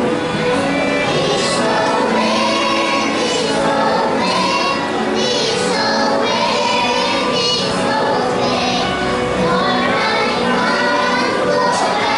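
A group of young children singing a song together in chorus.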